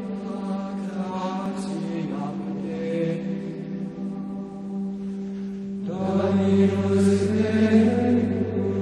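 Chanted vocal music with long held notes, playing as intro music. About six seconds in a lower held note joins and the chant grows louder.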